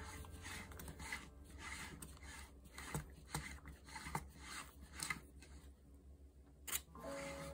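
Gloved hands rubbing and scraping around a metal tube cake pan full of chiffon batter: a series of soft, irregular strokes.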